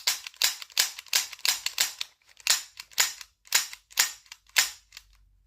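Non-blowback airsoft pistol fired again and again, about a dozen sharp shots at an uneven pace that stop about five seconds in. Each shot takes a stiff, heavy trigger pull.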